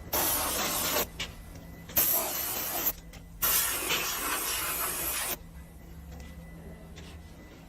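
Anti-rust spray being applied to a CNC wood lathe in three hissing bursts, the first two about a second each and the last about two seconds.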